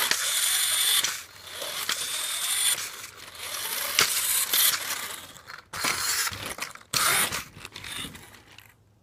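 Hobby RC car's motor and gears whirring in bursts of a second or two as it is throttled on and off, with a high whine during the runs.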